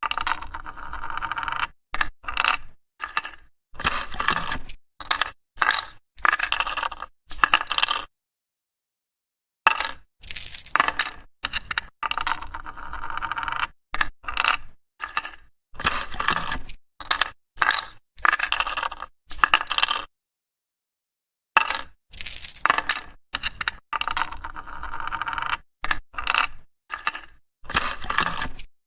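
Coins dropping onto a hard surface: a rapid string of sharp metallic clinks with a high ringing tail, some dense runs, some single coins. Twice it stops dead for about a second and a half, and the same sequence starts over.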